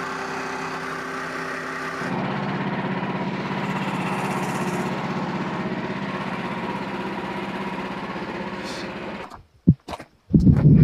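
Frontier OS27 sawmill's small gasoline engine running steadily, its note shifting lower and a little louder about two seconds in, then cutting off near the end. A few sharp knocks follow just after it stops.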